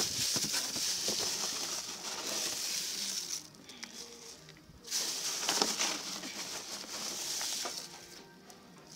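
Organic chicken manure pellets poured into a plastic bucket, rattling and pattering down onto shredded comfrey leaves. The pour comes in two goes, with a short pause about three and a half seconds in.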